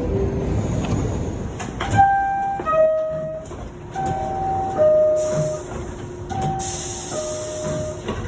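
NYC subway R62A car's door chime sounding its two-note descending ding-dong three times, after a stretch of train rumble. A loud hiss comes near the end.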